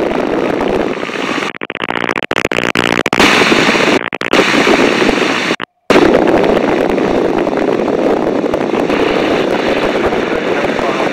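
A de Havilland Tiger Moth in flight: a loud, dense rush of engine and slipstream noise in the open cockpit, buffeting the microphone. The sound stutters a couple of seconds in and cuts out completely for a moment near the middle before the rush returns.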